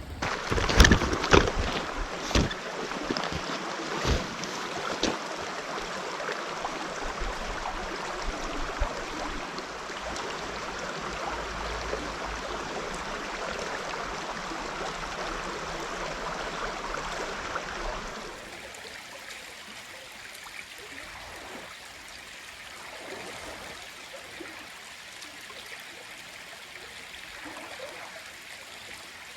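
Small mountain stream running steadily, with a few sharp knocks in the first few seconds. About two-thirds of the way through the rushing drops to a quieter level.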